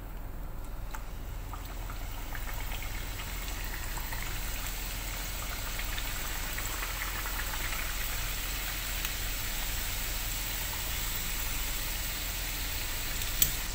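Stuffed sweet pastries (puriyan) deep-frying in hot oil in a pan: a steady crackling sizzle that grows louder over the first couple of seconds as they go in. A sharp click near the end.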